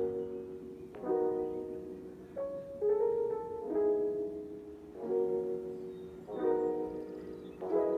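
Background piano music: chords struck about every second and a quarter, each left to ring and fade.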